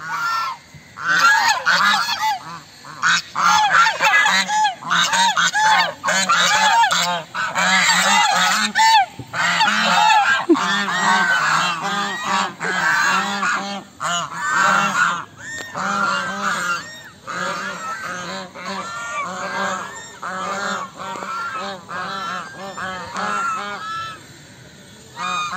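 A flock of white domestic geese honking, many calls overlapping, growing fainter in the last several seconds.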